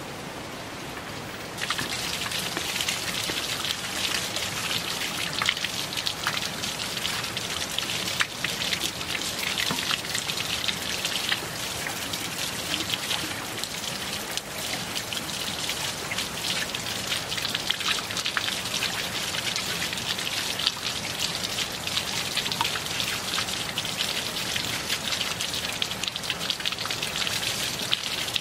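Water pouring from a PVC pipe outlet and splashing onto wet stone, a steady dense pattering that gets louder about two seconds in.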